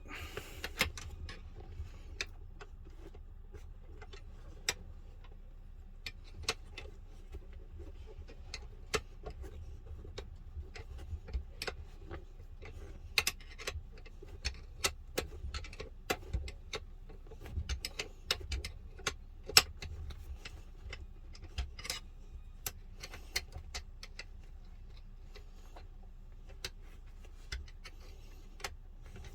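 Irregular light clicks and taps of small metal parts and hand tools being handled during work on a seat armrest bolt, over a low steady hum.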